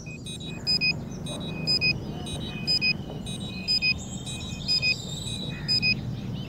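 Electronic countdown beeper sounding a short, high double beep about once a second, marking the seconds of a rocket launch countdown, over a steady low outdoor rumble.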